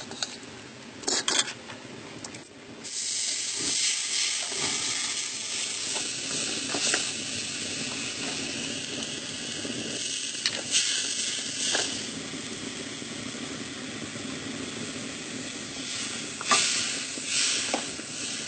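Vinegar and red wine boiling down in a hot pan, sizzling and hissing steadily as it reduces to a glaze. The hiss swells about three seconds in. A few sharp clicks come through it.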